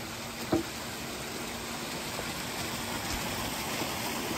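Pump-fed backyard stream running over rocks: a steady rush of flowing water, with one sharp knock about half a second in.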